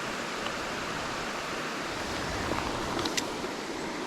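Creek water running steadily, with a brief click about three seconds in.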